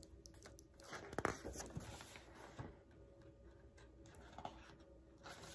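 Paper pages of a hardcover picture book being turned by hand: short, soft rustles and flicks, the loudest cluster about a second in.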